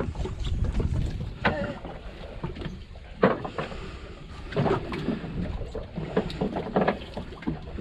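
Small fishing boat at sea: a steady low rumble of water and wind against the hull, with a few short knocks of handling on deck, the sharpest about three seconds in.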